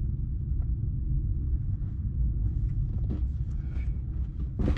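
Light clicks and rattles of plastic interior car trim being pried and worked loose by hand, with one sharper click near the end, over a steady low rumble.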